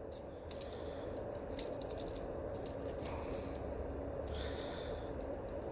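Scattered light metallic clicks and clinks from a silver handcuff bracelet and its chain being handled, over a faint steady hum.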